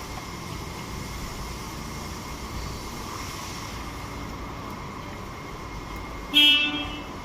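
Toyota Yaris engine idling with a steady low rumble, the idle the owner calls rough. A single short horn honk comes about six seconds in and is the loudest sound.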